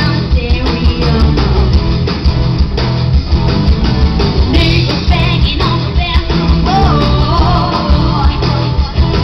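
Loud live pop-rock music from a stage show, with a steady drum beat and singing, heard through a small camera's microphone.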